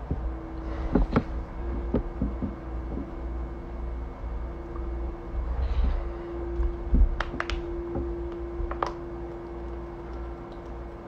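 A few knocks and clicks from objects being handled on a table, over a steady low hum.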